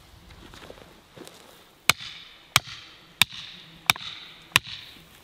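Hammer driving a metal grounding rod for an electric fence into the ground: five sharp ringing strikes, evenly spaced about two-thirds of a second apart.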